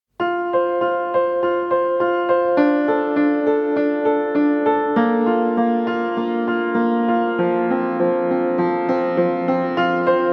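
Background music: a keyboard or electric-piano piece with evenly repeated notes, about two a second, and chord changes every few seconds.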